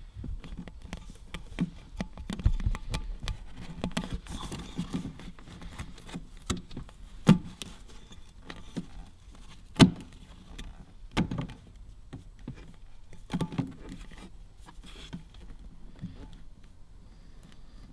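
Hands working Dynamat sound-deadening mat into place against the metal of a car's transmission tunnel: irregular taps, rustles and knocks, with two sharper knocks about 7 and 10 seconds in.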